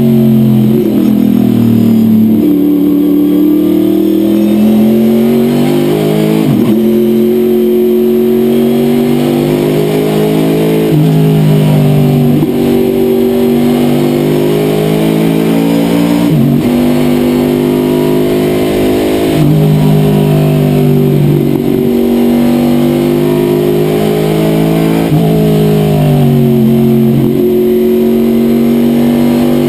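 Race car V8 engine of a Corvette C6 Sports Sedan heard from inside the cockpit, under hard acceleration: its pitch climbs and then drops sharply at each gear change, several times over, with easing-off between runs.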